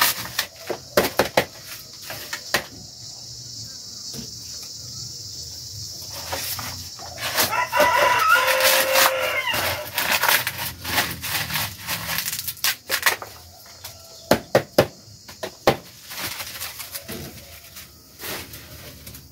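A rooster crowing once, a drawn-out call about halfway through. Around it, repeated sharp crackling and tearing of dry corn husks as ears of maize are stripped by hand.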